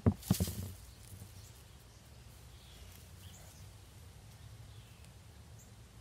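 Hands digging in loose garden soil among dry potato vines: a few short rustles and knocks in the first half second, then only faint outdoor background with a low steady hum.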